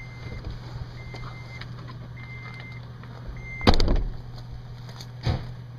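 Vehicle engine idling steadily while a dashboard warning chime beeps about once a second, four times. The chime stops at a loud thump about 3.7 s in, and a smaller thump follows near the end.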